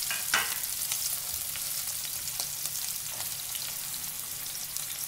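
Sliced onion and green chillies sizzling in hot oil in a wok: a steady hiss with scattered small crackles.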